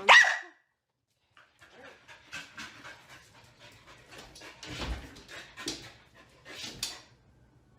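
A dog panting in quick, irregular noisy breaths, after a short, loud, sharp cry right at the start.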